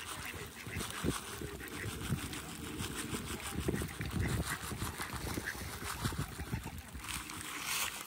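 Mallards quacking low and dabbling at the water surface for food, with small splashes.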